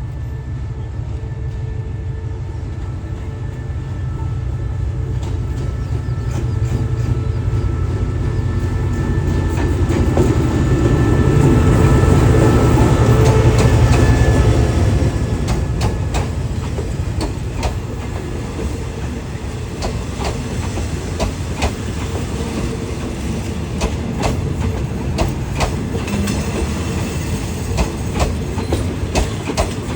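Diesel-hauled express passenger train running into the station. The locomotive's drone builds to its loudest about twelve seconds in and eases off, then the carriage wheels click steadily over the rail joints.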